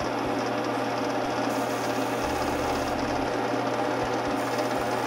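VEVOR benchtop wood lathe running steadily with a constant motor whine, spinning the workpiece.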